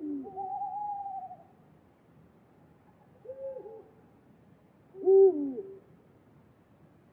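Owl hooting: short hoots at the start, about three seconds in and about five seconds in, the last the loudest, with a wavering higher call just after the first.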